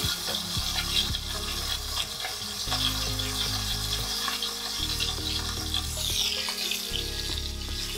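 Chicken thighs and green onions frying in a cast-iron skillet on a portable gas burner: a steady sizzle with fine crackling, kept on low heat so the skin crisps slowly. The wooden lid is lifted off near the end.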